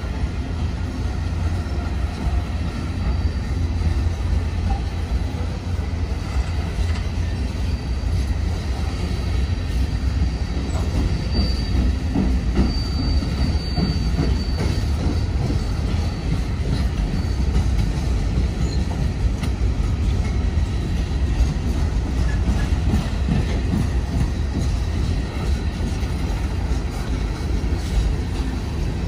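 A train rolling past with a steady, heavy rumble. A faint, thin wheel squeal rises and falls through the middle.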